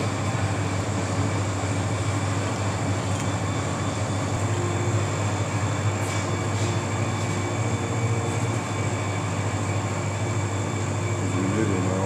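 Steady low hum with a faint thin high whine above it and an even background hiss.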